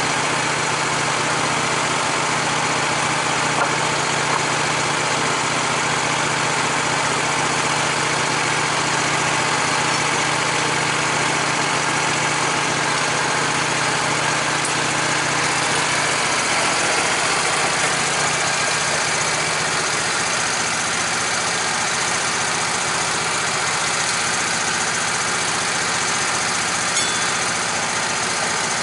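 Wood-Mizer LT15 portable band sawmill running steadily, its engine driving the band blade as the saw head is pushed along a white oak log to saw boards. The engine note changes about halfway through.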